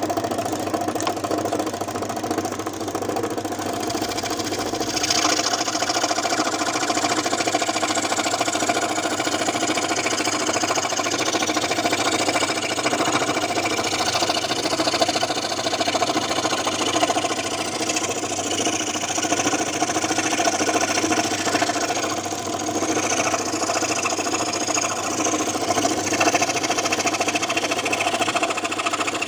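Electric scroll saw running steadily, its reciprocating blade making an even mechanical hum. A higher hiss joins about five seconds in and comes and goes after that.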